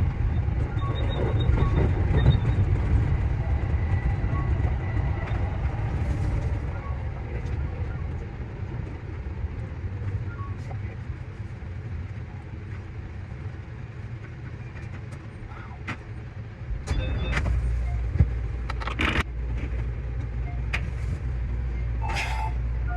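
Running noise of a JR Central 315 series electric train heard from on board: a steady low rumble that eases off midway and grows louder again a little after halfway, with several sharp clicks over the next few seconds.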